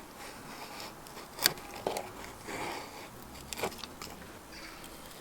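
Condor Terrasaur bushcraft knife, a 1075 carbon-steel blade, cutting and shaving into a stick of fatwood: a few sharp crunching cuts, the loudest about a second and a half in, with softer scraping strokes between.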